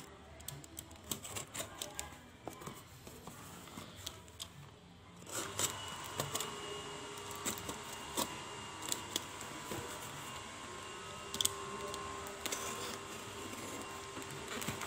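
A taped cardboard parcel being handled and cut open with a box cutter: scattered clicks, taps and scrapes of the blade, tape and box. About five seconds in, a faint steady hum of several tones comes in underneath.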